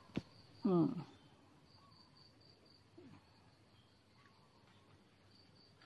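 Insect chirping in short, high-pitched pulses, about four or five a second, pausing in the middle and starting again near the end. A sharp click just after the start and a brief voiced sound about a second in are louder than the chirping.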